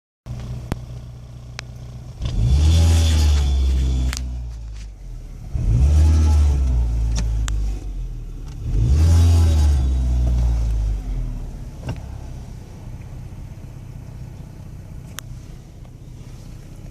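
1998 Volkswagen Jetta engine idling and revved three times, each rev rising and falling over about two seconds, with some sharp ticks over the idle. It carries an abnormal noise the owner cannot identify, which began after a big bang from the engine compartment and has grown louder.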